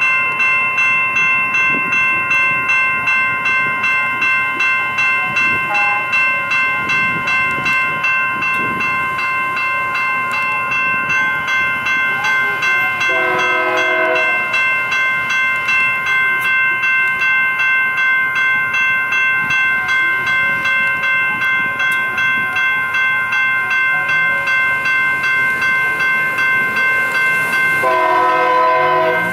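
Railroad crossing warning bells ringing steadily, about two strokes a second. The air horn of the approaching Union Pacific freight's lead locomotive, an EMD SD59MX, sounds briefly about halfway through and again, louder, near the end.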